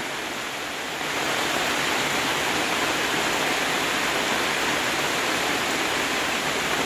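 Heavy rain, with a stream of rainwater pouring down and splashing onto a wet dirt floor: a steady rushing hiss that gets a little louder about a second in.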